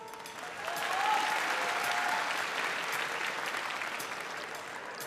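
Large theatre audience applauding, swelling about half a second in, then slowly easing off.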